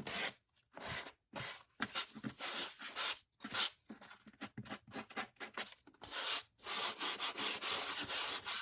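Rubbing strokes by hand on a small surface, such as sanding miniature woodwork: a quick, irregular run of short, hissy strokes with brief gaps, closer together in the last couple of seconds.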